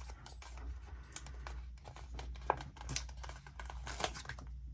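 Paper rustling and crinkling with scattered light clicks and taps, as pages and small paper floral pieces from a sticker book are handled.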